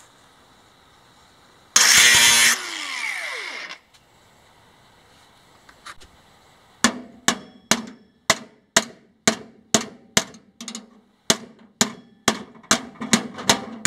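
An angle grinder runs for under a second and spins down with a falling whine. A few seconds later a hammer beats on the steel drum lid, about sixteen sharp metallic blows at roughly two a second, knocking down the flaps of a star-shaped cut.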